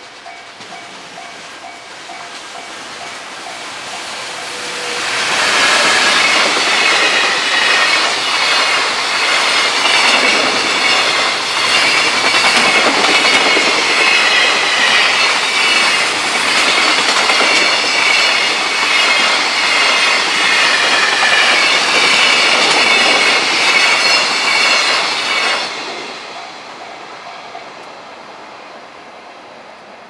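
A train passing close on the rails, its wheels clattering with many overlapping squeals. It builds up for about five seconds, stays loud for about twenty seconds, then drops away suddenly. A level-crossing bell is dying away at the very start.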